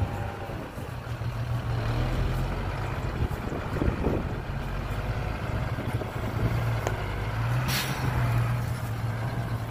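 Diesel engine of a dump truck running steadily, with a short hiss of air about eight seconds in.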